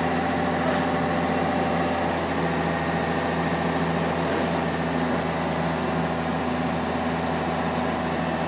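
A steady low mechanical hum with several steady tones in it, like an idling engine.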